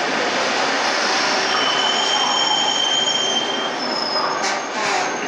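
Renfe electric multiple-unit train rolling into the platform past the listener: a loud, steady rush of wheels on rail with thin high squealing tones from the wheels or brakes through the middle, and a few sharp knocks near the end.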